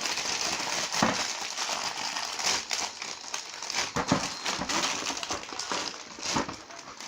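Packaging crinkling and rustling as it is handled, with several sharper crackles.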